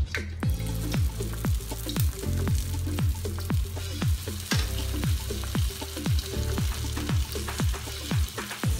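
Lumpiang shanghai (Filipino spring rolls) sizzling as they fry in a pan of oil. Under it runs electronic background music with a deep kick drum about twice a second and a steady bass line.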